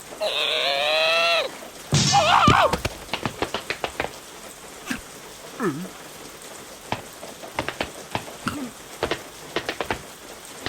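Cartoon sound effects: a wordless character cry lasting about a second and a half, then a second warbling cry with a thump about two seconds in, followed by scattered light ticks and taps with a couple of short sliding squeaks.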